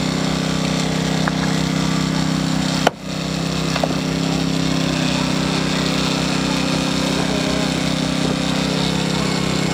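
Small engine of a hydraulic rescue-tool power unit running steadily under the extrication work, with one sharp snap about three seconds in.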